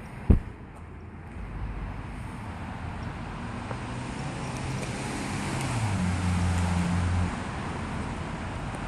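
A sharp knock just after the start, then a car driving past: its engine and tyre noise swell over several seconds, the engine note shifting, and drop away about seven seconds in.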